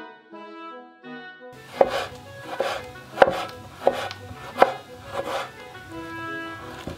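Keyboard music for the first second and a half, then a knife chopping vegetables on a wooden cutting board: about six sharp strikes, a little under a second apart, with soft music still under them.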